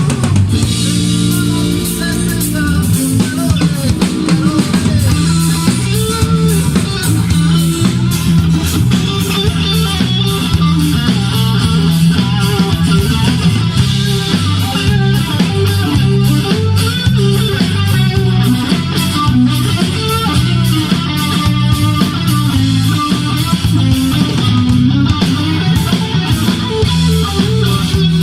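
Instrumental rock music: electric guitar, bass guitar and drum kit playing with a steady beat and a stepping bass line.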